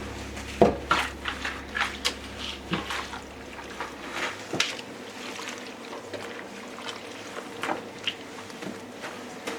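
A series of light knocks and clicks from things being handled, with faint liquid sounds, over a low hum that cuts off about four seconds in.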